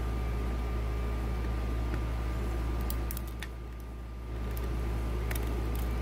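Steady low hum with a faint high steady tone, which dips briefly about halfway through. Over it are a few faint light clicks of steel tweezers against a brass lock cylinder as it is taken apart.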